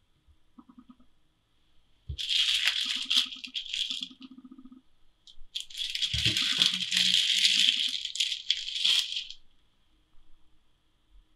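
Plastic wrapping crinkling as a processed cheese slice is peeled out of it, in two spells of a few seconds each, the second one longer.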